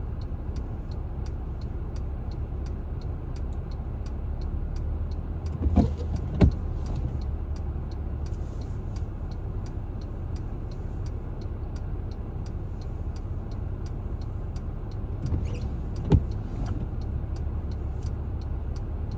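Steady road and engine rumble inside a moving car, with a fast, even, faint ticking of the turn signal ahead of a left turn. A couple of sharp knocks come about six seconds in and another near sixteen seconds.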